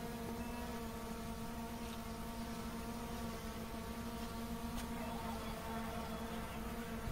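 A steady low hum with several overtones, unchanging in pitch, over a faint low rumble.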